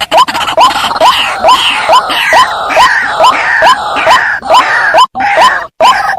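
White-breasted waterhen calling: a loud, fast run of short, harsh hooked notes, about three a second, with a second, higher bird's calls overlapping. The calling breaks off briefly near the end. This is the ruak-ruak call played as a lure to bring waterhens in.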